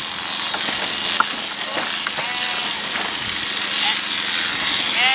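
Sheep bleating in a crowded holding pen: a call a little past two seconds in and a stronger, longer one right at the end. Beneath them runs the steady hum of an electric sheep-shearing handpiece cutting through fleece.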